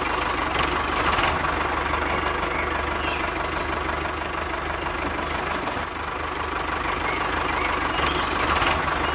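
Remote-control toy tractor running, a steady engine-like drone.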